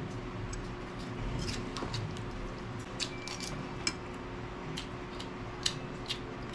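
Close-up chewing of raw green vegetables: crisp crunches and crackles at irregular intervals over a steady low hum.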